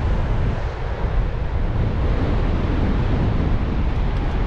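Wind buffeting the microphone in a loud, uneven low rumble, over the steady wash of surf breaking on the beach.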